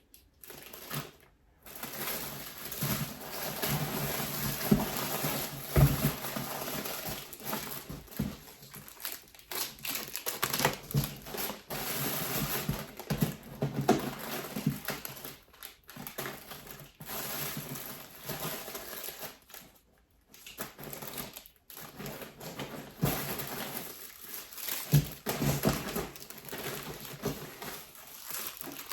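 Plastic packaging rustling and crinkling as parcels are opened and items handled, with scattered small clicks and taps and a few brief pauses.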